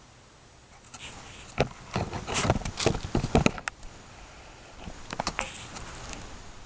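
Handling noise close to the microphone: a cluster of sharp clicks, knocks and short scraping rustles, then a few more clicks later on, as the camera is moved and adjusted.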